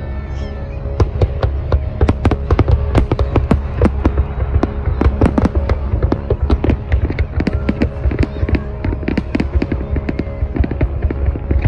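Fireworks going off in rapid sharp bangs and crackles, many a second, over steady background music.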